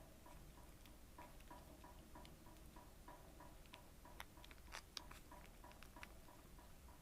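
Faint, rhythmic clicking of toy poodle puppies suckling at the teat, about three clicks a second, with a short pause near the start and a few sharper smacks around the middle.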